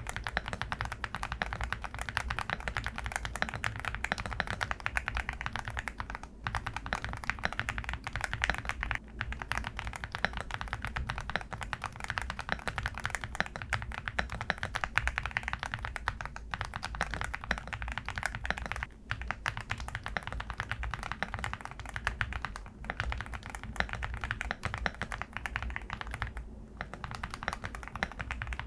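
Fast, continuous typing on a Varmilo Sword 68 full-aluminium, gasket-mount mechanical keyboard, many keystrokes a second. Brief pauses come every few seconds.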